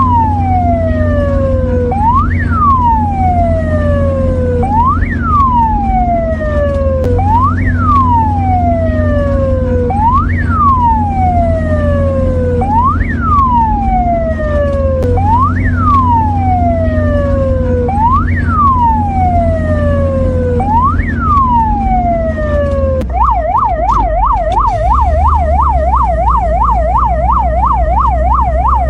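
Mexican ambulance siren sounding a wail, each cycle a quick rise in pitch and a slower fall, repeating about every two and a half seconds. Near the end it switches to a fast yelp of about three up-and-down sweeps a second. A steady low hum runs underneath.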